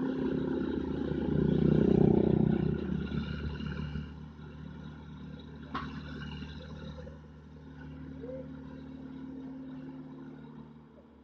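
Komatsu mini excavator's diesel engine running steadily as it digs, with a motorbike passing close in the first few seconds, the loudest part. A single sharp knock about six seconds in.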